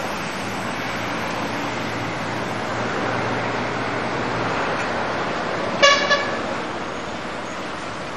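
Steady noise of road traffic, with a vehicle horn tooting twice in quick succession about six seconds in.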